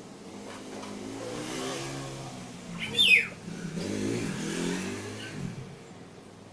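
A motor vehicle engine running in the background, its pitch rising and falling. About three seconds in comes one short, high squeal that falls quickly in pitch, the loudest sound here.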